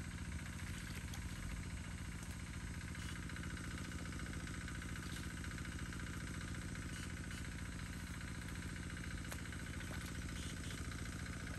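Small engine of a water pump running steadily, a constant low drone with an even throb, with a few faint ticks over it.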